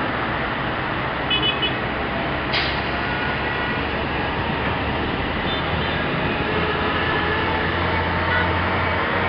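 City road traffic: a steady roar of passing vehicles, with a short high beep about a second and a half in, a sharp click a second later, and the low hum of a heavy vehicle's engine growing louder in the second half.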